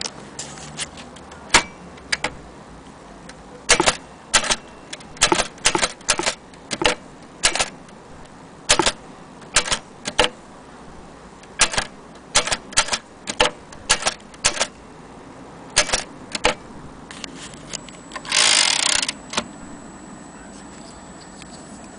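Keys of a 1930 Imperial Companion portable manual typewriter being struck, sharp mechanical clacks at an uneven typing pace, singly and in quick runs. Near the end comes one longer rasping burst lasting under a second.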